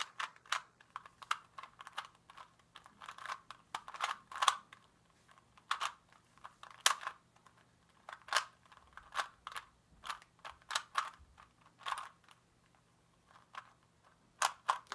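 Rubik's Cube being turned by hand: quick plastic clicks and clacks as the layers are twisted, in irregular runs with short pauses.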